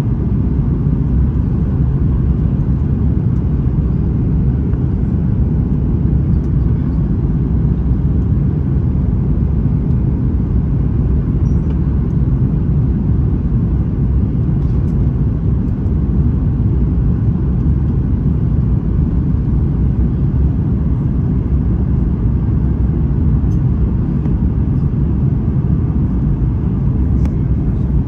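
Cabin noise inside a Boeing 737 MAX 9 airliner: a steady, even low rumble of engines and airflow.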